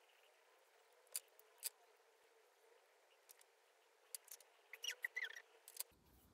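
Faint small plastic clicks and taps as an AirPods Pro charging case and its earbuds are handled and set down on a desk: two single clicks, then a quick cluster of clicks with a few light squeaks about four to six seconds in.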